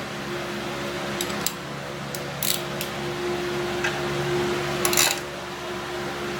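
A few light metallic clicks and clinks from hand tools as the oil drain plug is put back in, the loudest about five seconds in, over a steady mechanical hum.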